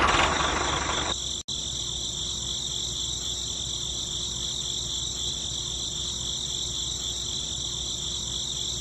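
Crickets chirping in a steady, high, pulsing trill.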